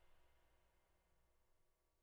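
Near silence: the last faint tail of the background music dies away in the first half second.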